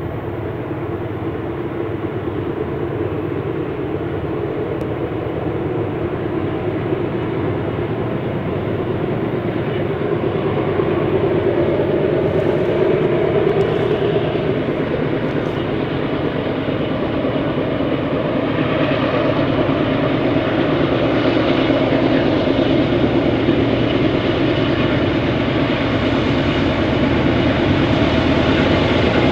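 BNSF GE C44-9W diesel locomotives working hard, pulling a freight train up a steep mountain grade: a steady engine drone that grows gradually louder as the train approaches.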